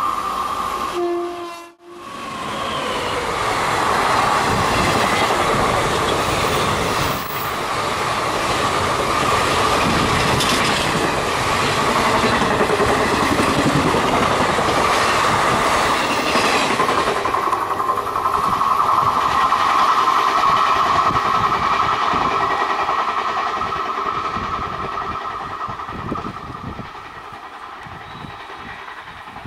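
An express passenger train hauled by a WAP-4 electric locomotive passes close by at speed, its wheels clattering over the rail joints in a loud, steady rush. Near the end it fades as the train pulls away. About a second in, a horn sounds briefly.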